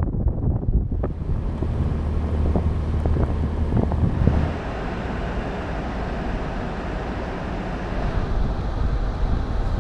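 Toyota 4Runner driving up a rough mountain trail: a low, steady engine hum with scattered knocks and rattles over bumps. About four seconds in this gives way to a broader, steady rushing noise of tyres and wind.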